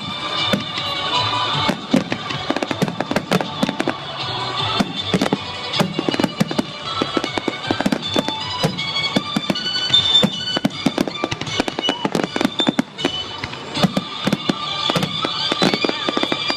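Fireworks display: a dense, continuous volley of bangs and crackling, many reports a second, with music playing over it.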